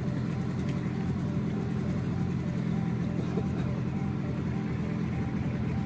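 Small boat's outboard motor running steadily at low speed.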